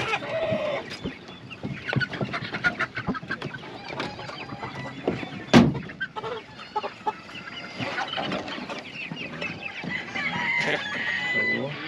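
Chickens clucking and crowing, with scattered knocks and one sharp knock about halfway through.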